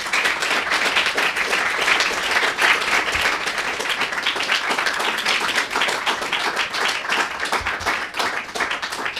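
Audience applauding, a dense steady clatter of many hands clapping that tails off near the end.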